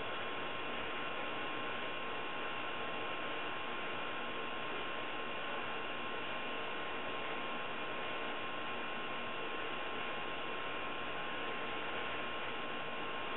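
Steady background hum and hiss with a faint constant tone, unchanging throughout; no distinct knocks, tearing or other events.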